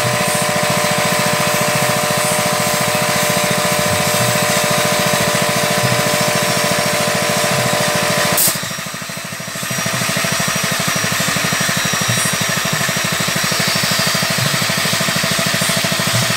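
Machine engine running steadily with a fast, even pulse, likely the engine that drives the fish-feed extruder. About eight and a half seconds in, its steady hum drops away and the level dips briefly before the running picks up again.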